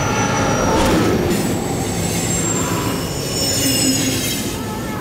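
Electric passenger train rushing past at speed, with high screeching from the wheels on the rails. A falling whine runs through the middle of the pass.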